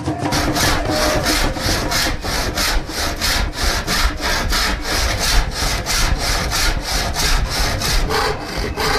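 Handsaw cutting a wooden board in quick back-and-forth strokes, about three a second, starting a moment in.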